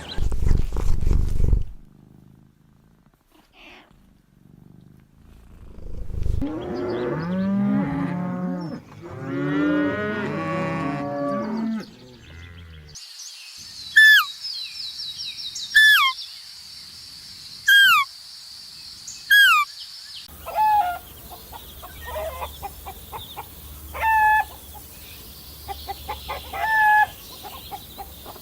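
Cow mooing: two long, low lowing calls a few seconds in. After them come four loud, sharp falling calls about two seconds apart over a steady high hiss, then scattered short chirps.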